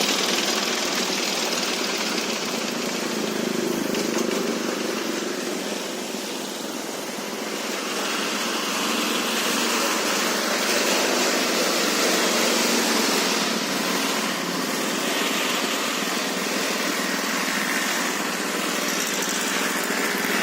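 Feed pellet mill driven by a 22 hp diesel engine, running steadily, with a brief dip in level about six seconds in.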